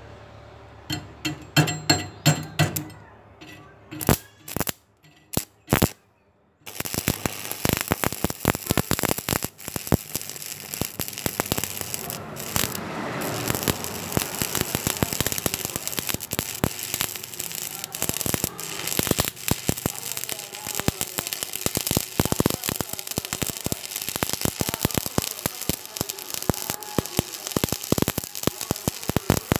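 Stick welding with a 6013 electrode on thin steel plate: the arc crackles and spits continuously. It starts about seven seconds in, after a few short, sharp clicks and taps.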